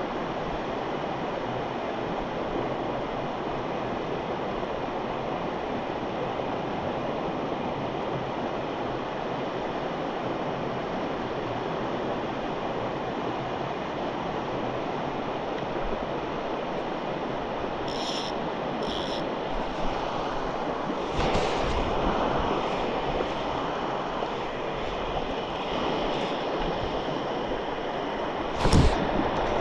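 Steady rushing of a mountain headwater stream's flowing water, with a sharp knock near the end.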